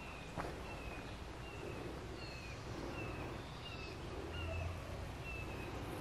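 A bird calling over and over: one short, slightly falling high note about one and a half times a second, over a faint woodland hiss. A low rumble joins about four seconds in.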